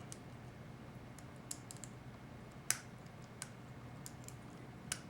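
Scattered light metallic clicks and taps of needle-nose pliers on transmission pump parts as a ring is worked into place, with a sharper click about two and a half seconds in and another near the end.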